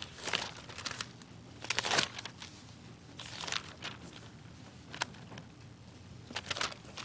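Thin Bible pages rustling as they are turned, in several short rustles with quiet gaps between.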